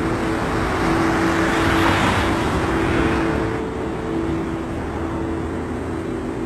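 A rushing noise swells, peaks about two seconds in and eases off by about four seconds. Under it runs a steady drone of two held tones.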